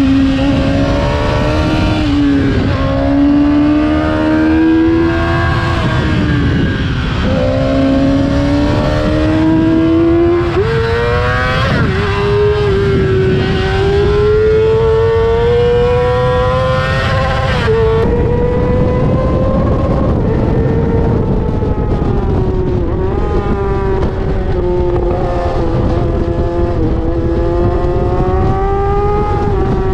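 Yamaha R6's inline-four engine through an Akrapovic exhaust as the bike is ridden on the street, the high engine note climbing and falling with the throttle and dropping sharply at several gear changes, over a steady low rush.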